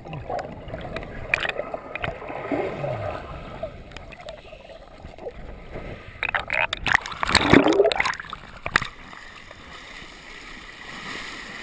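Shallow surf washing around a waterproof action camera held at and below the surface: churning water with scattered clicks and knocks, a loud rush of water about seven to eight seconds in, then a softer, steady wash.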